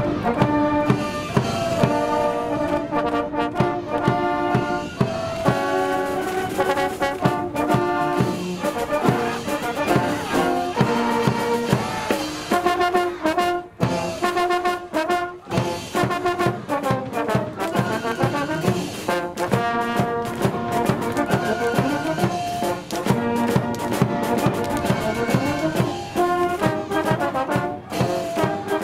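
Cheering brass band playing a fight song, trumpets and trombones carrying the melody over a steady drum beat.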